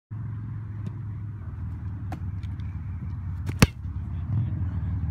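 A football being punted: one sharp thump of the foot striking the ball about three and a half seconds in, over a steady low background rumble.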